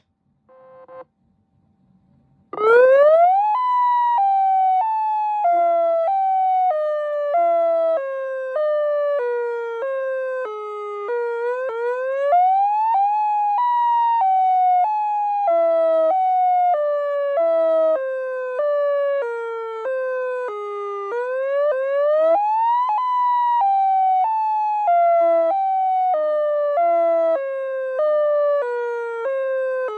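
Electronic siren tone from a Federal Signal UltraVoice+ controller. After a short beep it starts about two and a half seconds in, sweeping quickly up to a high pitch. It then falls in even steps, a little under a second each, and sweeps back up about every ten seconds.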